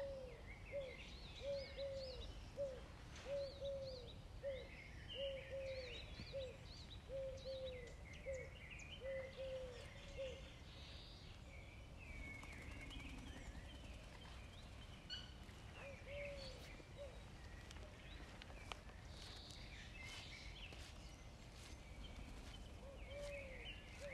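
Birdsong: one bird repeats a short, low hooting note in twos and threes through the first ten seconds and a couple of times more later, over higher chirping. Small sharp clicks in the second half are a cat crunching dry kibble.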